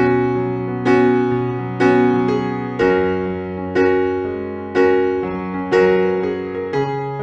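Background music: electric piano playing slow chords, one struck about every second and fading before the next.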